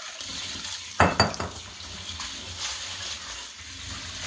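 Tap water running and splashing through wheat grains in a plastic colander in a kitchen sink. About a second in come two sharp knocks as the bowl and colander are handled against the sink.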